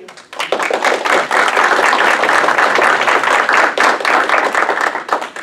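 Audience applauding, a dense patter of many hands clapping. It swells in about half a second in and dies away near the end.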